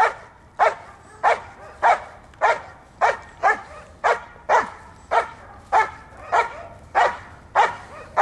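German Shepherd barking repeatedly in a steady, even rhythm, a little under two barks a second, while holding a protection helper at bay in the Schutzhund hold-and-bark exercise.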